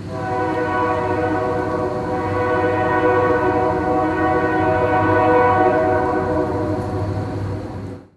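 Locomotive air horn sounding one long, steady chord, faded in at the start and cut off near the end.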